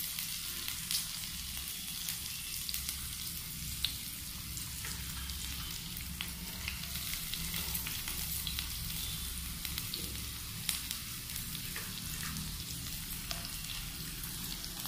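Chopped onions and green chillies sizzling in hot oil in a frying pan: a steady hiss with scattered small pops and crackles.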